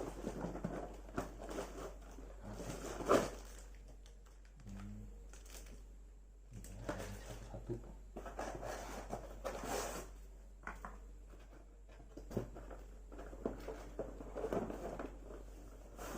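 Unpacking a metal detector by hand: irregular rustling and crinkling of packaging with scattered clicks and knocks of parts being handled, one louder knock about three seconds in.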